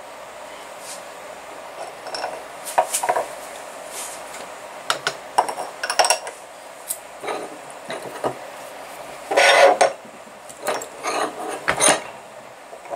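Metal engine parts clicking, clinking and scraping as a Saito FA170R3 model-engine crankcase is handled and set up on a hand arbor press for bearing installation. Scattered sharp knocks begin about two seconds in, with a longer scraping rub a little past nine seconds and more clicks after it.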